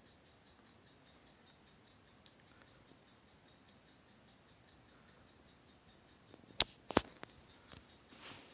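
Faint room hiss, broken near the end by two sharp clicks about half a second apart, followed by a softer shuffle.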